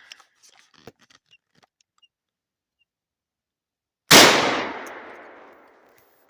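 A single gunshot about four seconds in, fired up into a squirrel nest to flush the squirrels out. The report echoes and dies away over about a second and a half.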